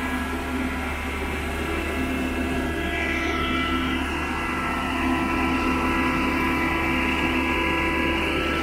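Machinery running steadily: a constant low hum with several high whining tones, which shift about three seconds in.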